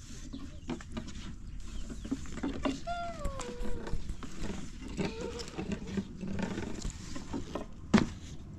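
An animal gives one drawn-out call that falls in pitch, amid scattered clicks and knocks, with a sharp knock near the end.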